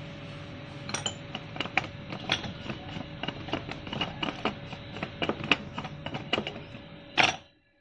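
Irregular light clinks of a metal utensil against a stainless-steel bowl, about two or three a second, as raw chicken drumsticks are tossed with salt, MSG and pepper. One louder scrape comes near the end.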